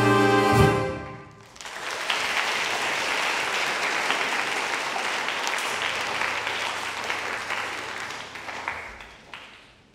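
A big band of saxophones, trumpets and trombones holds its final chord, cut off sharply with a last low hit about half a second in. The audience then applauds, the clapping fading away near the end.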